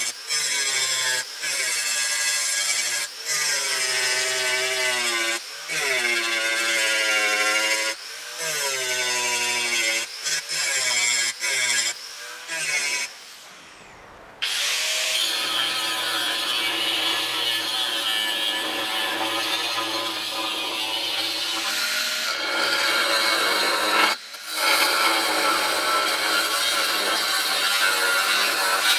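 Angle grinder grinding a block of welded mild steel, in short passes, its motor pitch sagging under load and recovering between passes. After a brief drop about halfway through, an angle grinder with a cutting disc runs steadily as it cuts into a square steel bar.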